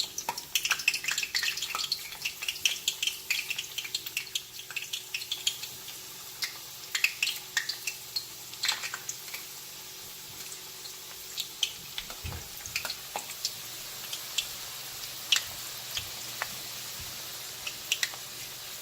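Egg-and-flour battered chicken pieces frying in hot oil: a steady sizzle with crackling pops, busiest in the first few seconds and thinning out after that.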